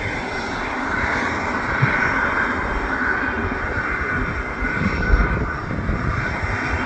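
Boeing C-17A Globemaster III's Pratt & Whitney F117 turbofan engines running on the ground: a steady jet whine over a broad rush, with irregular low rumbles.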